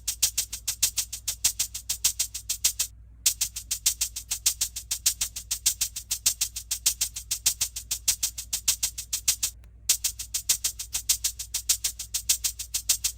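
Music made of a fast, even high percussion beat like a shaker or tambourine, about six strokes a second, over a low steady hum; the beat breaks off briefly twice.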